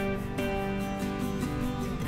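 Background music led by an acoustic guitar.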